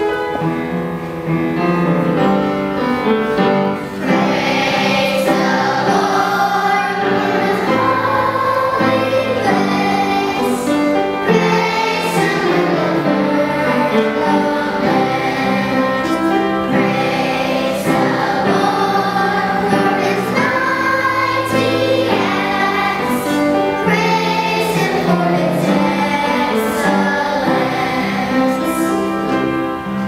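Children's choir singing a song together over a musical accompaniment with held low notes.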